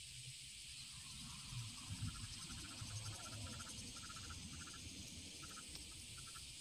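Faint, steady high-pitched chorus of summer insects with a fine fast pulse. From about two seconds in, a second, lower caller adds short pulsed bursts every half second or so.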